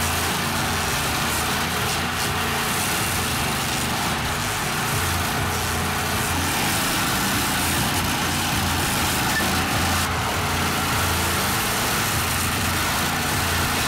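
Lumag stump grinder's engine running steadily under load as its cutter wheel grinds into a tree stump.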